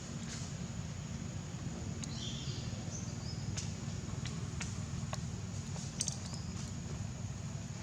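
Outdoor forest ambience: a steady low rumble under a thin, steady high buzz, with scattered clicks and a few short, high-pitched animal calls, the first about two seconds in and more about six seconds in.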